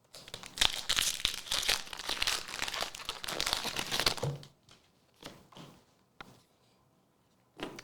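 Foil Pokémon booster pack wrapper crinkling and tearing open for about four seconds, followed by a few soft taps.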